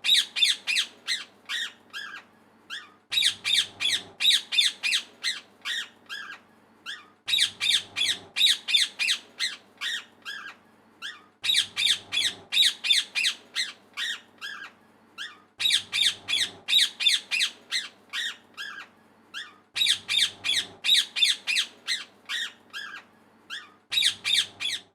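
Parrot squawking: a rapid run of harsh, high calls, quick at first and then spacing out, with the same sequence repeating about every four seconds.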